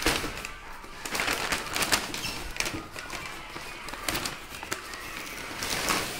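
Plastic wrapping and brown paper packing rustling and crinkling as they are handled, in irregular bursts.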